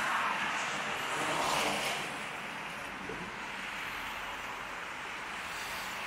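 Steady road traffic noise, with two louder swells in the first two seconds as vehicles pass.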